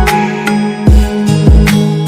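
Background music with a steady beat: deep drum hits about every 0.6 s under held tones.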